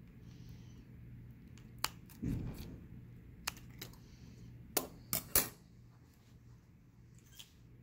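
A few scattered sharp clicks and taps, with one duller thump about two seconds in, over a steady low hum.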